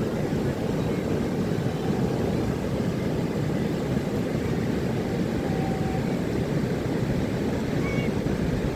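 Ocean surf breaking on the beach: a steady, unbroken low wash of waves.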